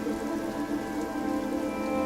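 Ambient music of long sustained chords over a steady rain-like splashing of falling water from a large fountain.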